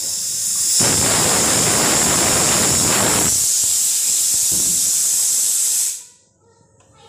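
Pressure cooker venting steam: a steady high hiss that swells into a louder, fuller rush for about three seconds near the start, then cuts off suddenly about six seconds in.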